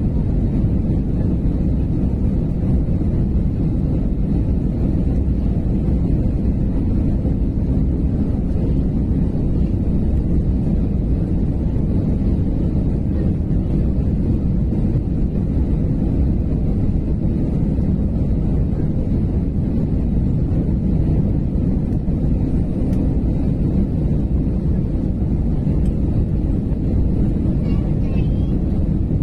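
Steady low rumble of airliner cabin noise, engines and airflow, on the final approach to landing.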